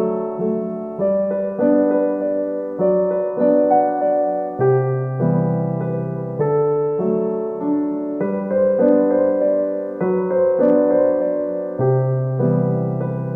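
Background music: a soft electric piano playing a gentle melody over held chords, each note struck and fading.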